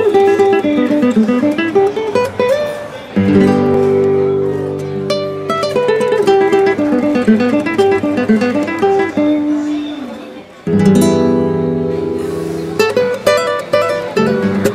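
Background music on acoustic guitar: a picked melody running up and down, with fuller strummed chords about three seconds in and again near eleven seconds.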